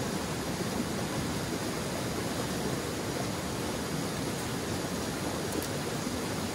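Stream water running, a steady even rush with no changes.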